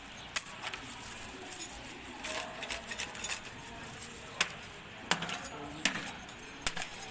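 Scattered sharp clicks and clinks of hard objects striking, at irregular intervals, a few standing out louder about half a second in and again between four and seven seconds in.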